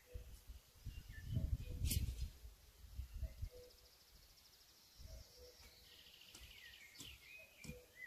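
Faint birdsong: a low two-note call, the higher note first, repeats every couple of seconds, with higher chirps and a short trill in the second half. Scattered low rumbles sound on the microphone.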